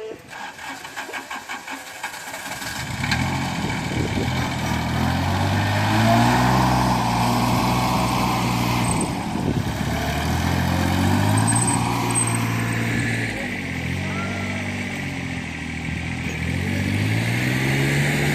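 An engine running and revving, its pitch rising and falling back several times.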